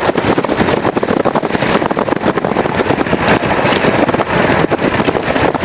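A vehicle driving at speed, with a loud, steady rush of wind and road noise mixed with rough, irregular crackle.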